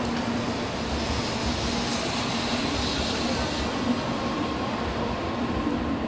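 Tokaido Shinkansen train running on the station tracks: a steady rumble with a higher hiss that swells and fades in the middle, over the general noise of the platform.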